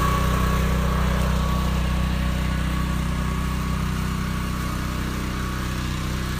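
Small engine of a pressure-washing rig running steadily at constant speed, with a higher hiss that slowly fades.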